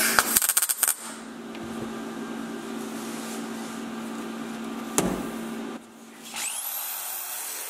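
MIG welder crackling in a short run of spits as it builds up weld around a rusted-through hole in the sheet-metal panel, then a steady low hum with a single click. Near the end a small high-speed power tool spins up in a steeply rising whine that holds at a high pitch.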